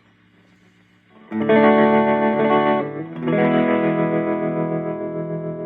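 Fender Stratocaster electric guitar played through an MXR Super Badass distortion pedal into a Fender Blues Junior amp: a faint amp hum, then a distorted chord struck about a second in and held, and a second chord a couple of seconds later left ringing and slowly fading.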